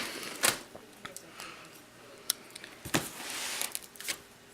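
Packaging padding being handled inside an opened cardboard box: a few light knocks and clicks with a short rustle about three seconds in.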